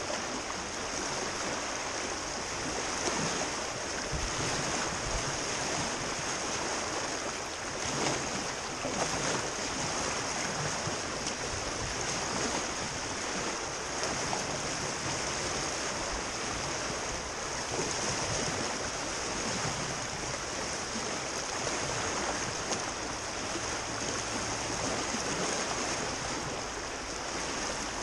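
Whitewater creek rushing over rapids around an open canoe: a steady, even rush of water.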